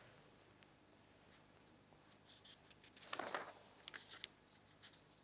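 Near silence: room tone, with a brief faint rustle about three seconds in and a few small clicks just after.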